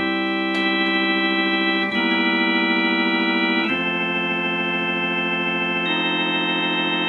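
Hammond organ playing sustained chords, changing chord several times. Its vibrato scanner has been repaired after oil saturation, and the tone holds steady with no chopping in and out.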